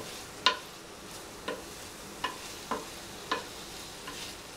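Wooden spatula stirring fried cauliflower in sauce in a non-stick frying pan, knocking and scraping against the pan about six times over a faint steady sizzle; the loudest knock comes about half a second in.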